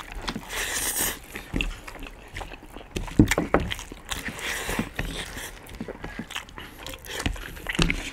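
Close-miked eating sounds of two people eating rice and curry with their hands: chewing, lip smacks and fingers squishing food on the plates, in many short irregular clicks.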